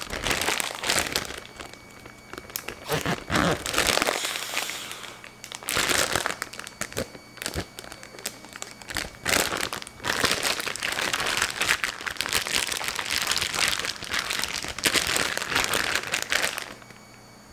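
A large plastic zip-top bag crinkling and rustling in repeated bursts as hands press its zipper shut and squeeze the marinated pork ribs inside.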